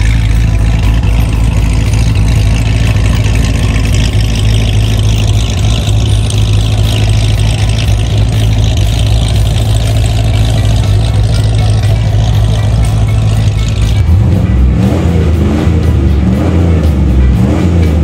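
Car engine running with a steady low drone, then from about fourteen seconds in an engine revved several times in rising sweeps.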